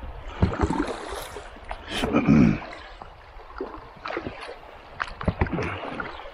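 Paddle strokes on a river from an inflatable boat: irregular splashes and dips of the paddle with sharp knocks, over running water. The loudest moment comes about two seconds in.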